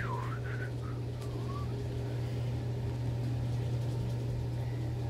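A steady low hum, with a few faint, short squeaky glides in the first second and a half.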